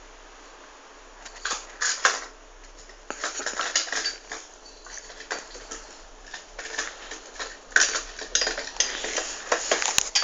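Light metal clattering and clinking as a cat scrambles into a metal clothes-drying rack: a short rattle about a second and a half in, then a longer run of irregular rattling from about three seconds in.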